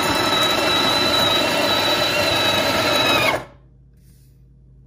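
De'Longhi KG 521.M conical burr grinder grinding a single-cup espresso dose into the portafilter: a steady motor whine over the grinding noise, stopping abruptly a little over three seconds in.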